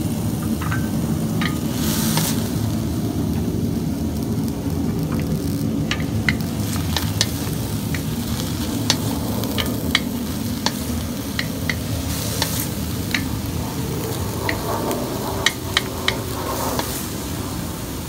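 Green beans, carrots and red capsicum stir-frying in a stainless steel wok: a steady sizzle, with a wooden spatula scraping and tapping against the pan in short sharp clicks that come more often from about six seconds in.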